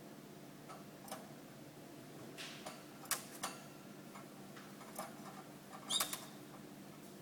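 Light, irregular clicks and taps from a white canary moving about its cage, with a short high note about six seconds in, over a faint steady hum.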